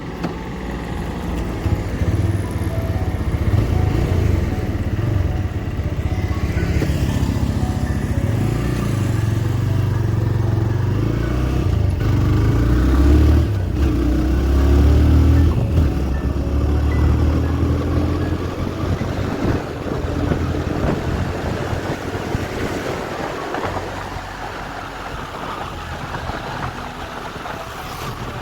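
TVS Raider 125's single-cylinder engine running on the move, its pitch shifting in steps with throttle and gear changes, with road and wind noise. It is loudest in the middle and eases off near the end.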